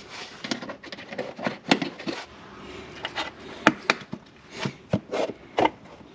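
Sharp plastic clicks and scraping as push-in plastic trim fasteners are pressed home through a Ford Fiesta Mk7's plastic wheel arch liner, a handful of separate clicks spread out.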